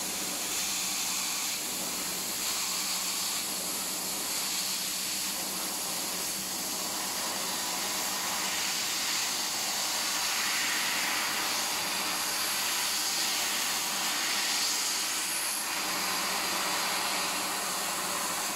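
Fiber laser cutting machine cutting sheet metal: a steady hiss from the cutting head, with a low steady hum underneath.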